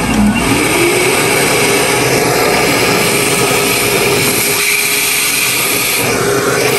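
Small vacuum cleaner motor finishing its spin-up as it starts, its pitch rising, then running steadily with a whine over a rush of air. It is vacuuming dust out of a newly fitted distribution board.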